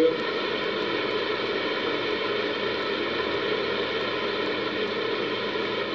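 Rain falling, a steady even hiss with no single drops or other events standing out.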